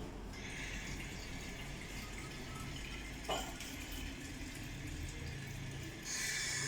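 Water being poured to fill a bottle, a steady splashing stream. A short knock about three seconds in, and the stream gets louder and higher-pitched about six seconds in.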